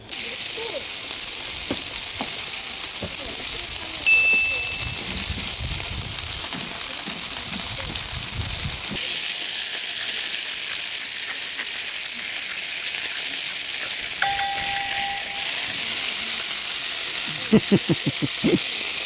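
Thick slices of par-grilled pork belly sizzling steadily on a portable gas grill. Two short metallic dings ring out, one about 4 s in and one about 14 s in.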